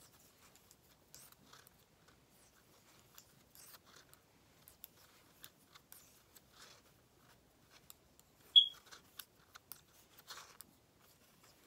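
Faint, scattered clicks and rustles of knitting needles and cotton yarn as stitches are worked, with one brief high-pitched squeak about two-thirds of the way through.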